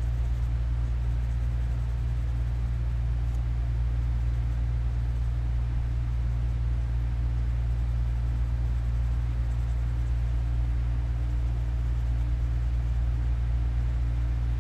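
Steady low rumble, an even background hum that does not change.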